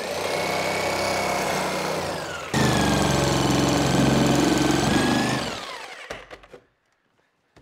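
Electric jigsaw cutting through plywood, its motor whining over the blade's rapid chatter. It gets louder about two and a half seconds in, then the motor winds down and stops a little after five seconds, followed by a few light knocks.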